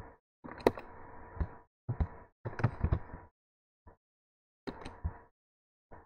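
Clicks and knocks from a computer keyboard and mouse being worked at a desk, in several short bursts cut off by a noise-gated microphone. The loudest knock comes a little under a second in. A faint hum runs under each burst.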